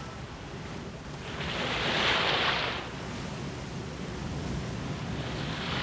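Rough sea surf: a wave breaks with a loud rush of spray about a second and a half in, then a smaller one near the end, over a steady low rumble of water.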